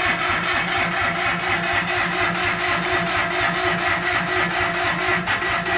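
Bolens DGT-1700 diesel lawn tractor engine running steadily in even, regular firing pulses, just after a cold start.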